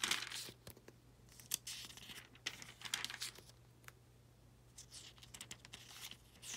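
Thin Bible pages being turned and handled: soft paper rustles and crinkles in short clusters with quiet gaps between.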